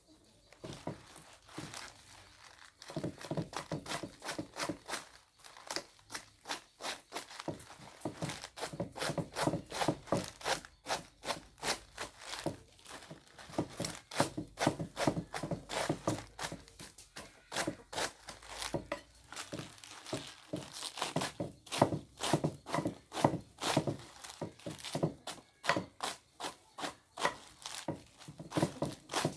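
Rapid, irregular knocks and crackling snaps, several a second, starting about three seconds in and running on with short pauses.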